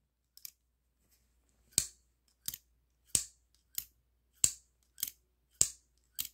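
Kunwu Chad folding knife flicked open and shut again and again by its thumb pieces, the blade snapping over with sharp metallic clicks. The clicks come about every two-thirds of a second, alternating single and double, eight in all.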